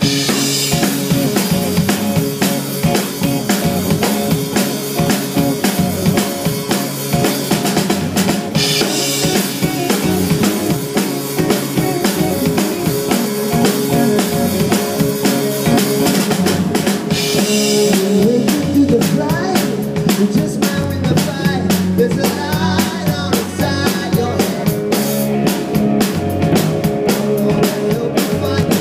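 Indie rock band playing a song live on drum kit, electric guitar and bass guitar, with crashing cymbals near the start, about nine seconds in and again about sixteen seconds in.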